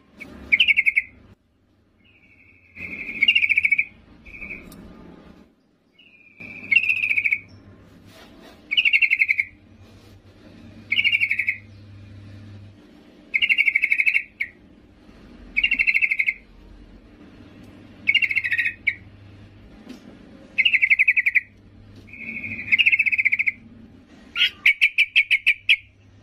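Female yellow-vented bulbul (trucukan) giving short chattering calls about every two seconds, with a quicker run of sharp notes near the end. This is a female calling for a male, the kind of call used as a lure for male birds.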